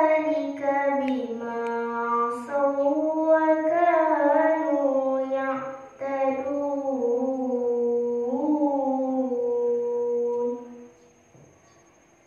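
A girl's voice chanting Quran recitation in tarannum style into a microphone: long held notes with ornamented turns, a short break for breath about six seconds in, and the phrase ending a little before the close.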